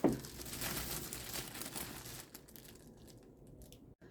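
Cardboard and plastic packing rustling and crinkling as it is handled, starting with a sharp knock and fading out about two seconds in.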